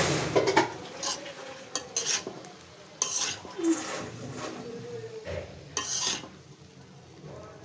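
A utensil stirring pre-boiled rice around a karai, with irregular scrapes and clinks against the pan, the loudest right at the start.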